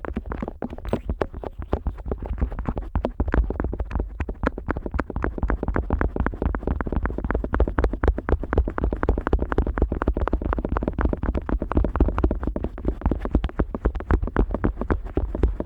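An otoscope rubbed and scraped against the rubber outer ear of a Neumann KU100 dummy-head microphone: a rapid, continuous run of close scratching strokes with a deep rumble underneath.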